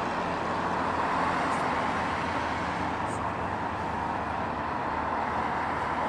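Steady engine drone with an even rushing noise over it, fitting the fishing boat's engine as the vessel motors past.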